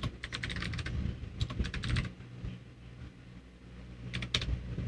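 Computer keyboard being typed on in quick runs of keystrokes: a run at the start, another between about one and a half and two seconds in, then a couple of keystrokes near the end. A steady low hum runs underneath.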